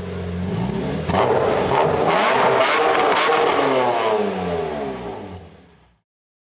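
Audi A5's turbocharged TFSI four-cylinder engine running on a rolling-road dyno, then pulling hard from about a second in, its pitch rising for a few seconds, and dying away near the end.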